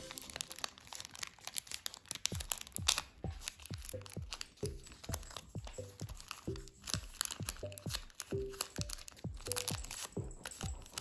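Background music with short, recurring low notes, over frequent crinkles and sharp crackles of origami paper being folded and creased.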